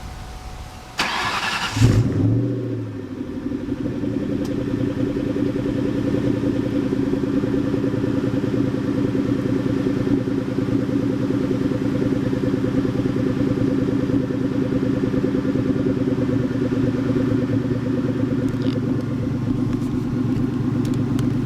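2003 SVT Cobra's supercharged 4.6-litre V8 being started: a brief crank about a second in, a flare as it catches just before two seconds, then a steady idle.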